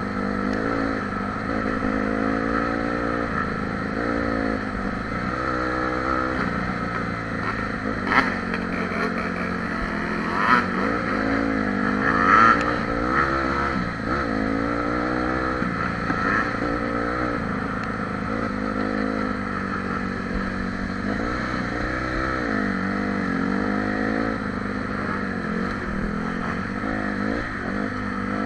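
Polaris ATV engine running, heard from on board, its pitch rising and falling over and over as the throttle is worked along the trail. A few short knocks come through in the middle.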